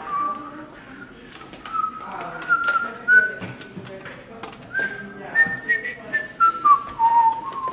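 A person whistling a tune, the melody stepping up note by note and then back down near the end, with scattered light clicks and knocks.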